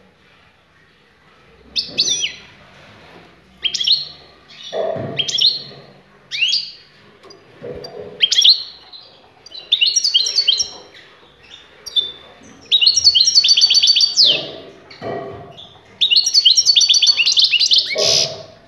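European goldfinch singing: after a short pause, a string of bright twittering phrases of quick falling notes, growing about halfway through into longer, rapid trilled runs.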